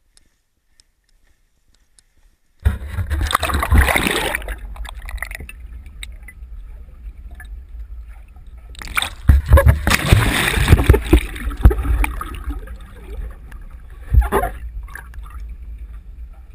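Water sloshing and gurgling against an action camera's waterproof housing held underwater, with a heavy low rumble. It starts abruptly about two and a half seconds in, after near silence, and swells into loud stretches of splashing twice, with a shorter surge near the end.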